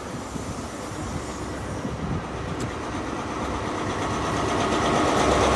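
Diesel train running at a station platform, its engine and wheel noise growing steadily louder as it draws nearer.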